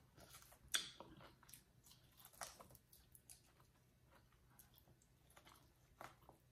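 Faint chewing of corn on the cob, with scattered soft wet mouth clicks and smacks; the most distinct comes a little under a second in.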